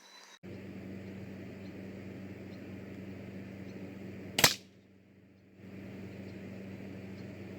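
A single sharp crack of a Daisy Powerline 880 multi-pump air rifle firing a pellet, about halfway through, over a steady low hum and hiss.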